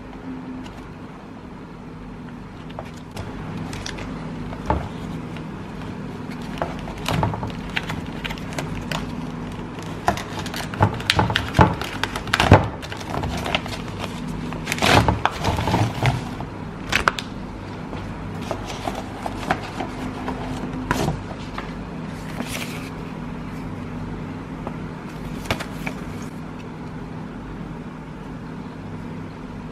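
Plastic felt-tip connector pens being handled and swatched: irregular clicks and taps of pens and caps, thickest in the middle, with a few short scratches of pen on paper, over a steady low hum.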